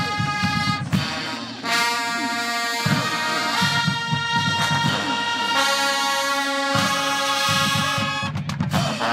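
HBCU show-style marching band playing: the brass section holds loud chords that change every second or two, over a steady beat from the drum line. Near the end, a quick run of drum hits breaks in.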